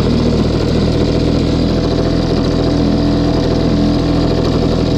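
Sea-Pro T3S two-stroke outboard motor running steadily, just after being started.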